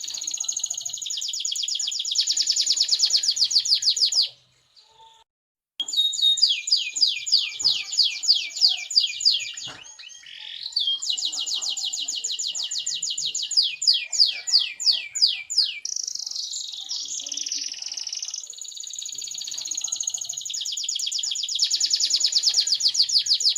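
Domestic canary singing a long, clear song of fast trills and runs of rapidly repeated high notes. It breaks off briefly about four seconds in, then resumes with quick rolling trills.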